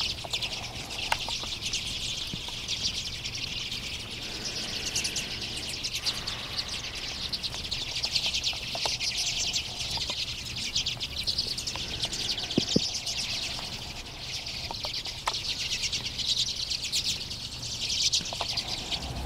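Large flock of Common and Hoary Redpolls calling together: a dense, continuous twittering chatter of many short overlapping calls.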